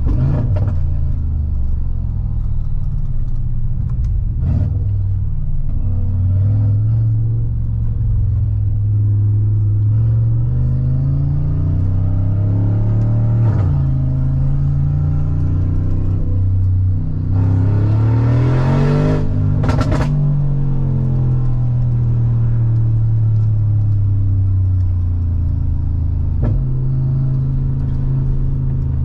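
Mansory G900's 4.0-litre V8 accelerating in short pulls. Its pitch rises and then drops with a sharp crack at each upshift. About two-thirds of the way through, a loud rush of noise ends in two sharp cracks.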